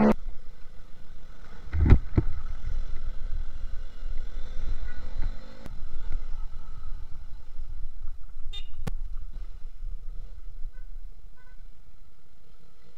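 Motorcycle riding through city traffic: a steady low rumble of engine and wind, with short horn honks. A loud thump about two seconds in and a sharp click near the end of the ride shown.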